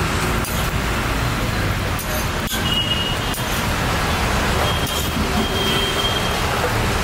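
Steady low rumble of road traffic, with a few sharp clicks and scrapes of a metal spatula on a flat iron dosa griddle.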